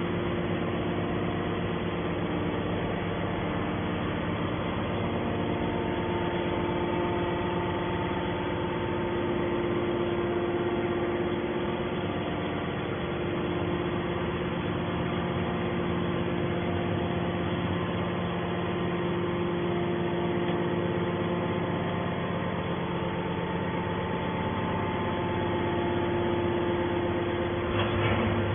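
Hydraulic metal baler's power unit running with a steady drone and several constant tones, with a brief louder noise near the end.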